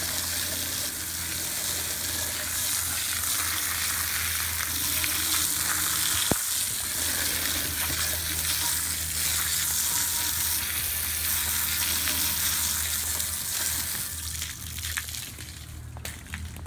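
A jet of water from a hose spraying onto a steel wheel rim, a steady hiss and splatter as the vinegar-loosened rust is rinsed off. The spray weakens and breaks up near the end.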